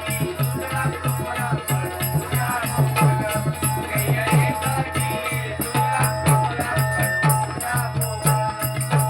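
Devotional bhajan music between sung lines of a gajar: a steady drum beat of about three to four strokes a second, with jingling hand percussion and a melody line over it.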